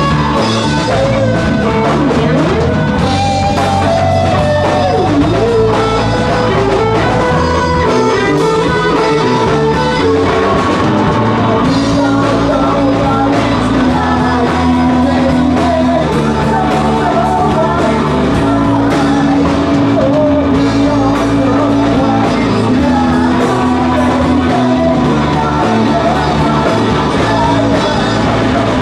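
Live rock band playing loud: electric guitar and drum kit, with a singer singing into the microphone.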